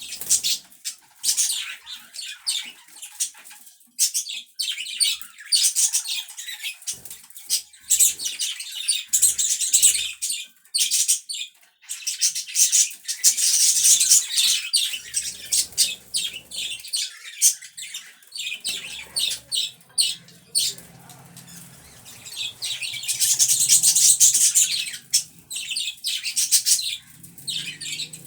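Pet budgerigars chattering: rapid high chirps, warbles and clicks from several birds, overlapping in busy bursts that swell and ease off.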